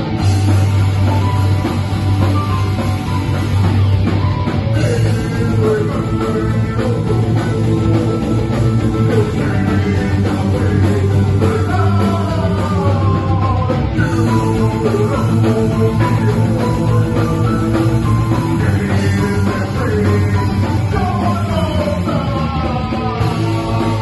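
Live rock band playing: electric guitars, bass, drums and keyboard, with a singer's voice over them at times.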